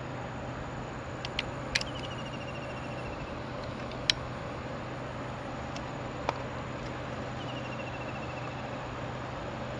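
Steady outdoor background hiss with a low hum, broken by a few sharp clicks, the loudest about four seconds in. Twice a short trill of rapid high chirps falls in pitch.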